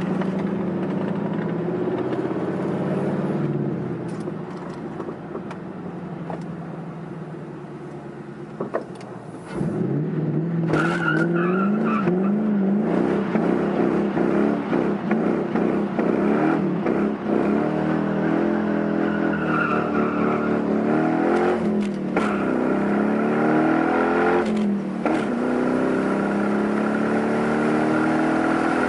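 Car engine accelerating hard through the gears. Its note climbs, drops back at each shift and climbs again, again and again, and gets much louder about a third of the way in.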